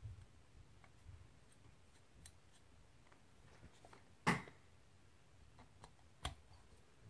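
Faint clicks and taps of small metal parts and a screwdriver as the float pin retaining screw is fitted on a Honda CR250R carburetor, with one louder short clatter about four seconds in and a sharp click about two seconds later.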